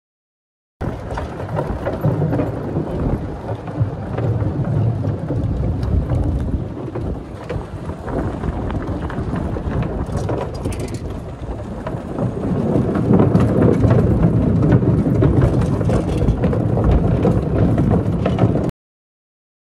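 Wind buffeting a phone microphone: a loud, rough rumble with no clear tone, louder in the second half, starting and stopping abruptly.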